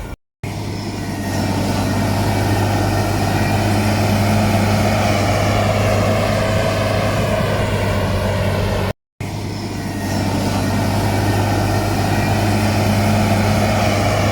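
Heavy diesel engine of earthmoving machinery running steadily at a constant pitch. It cuts out briefly twice.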